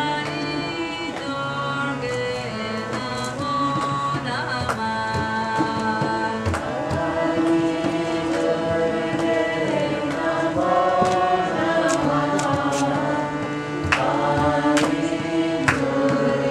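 Kirtan: voices chanting a devotional mantra to music, over sustained held notes and hand-drum strokes that come more often near the end.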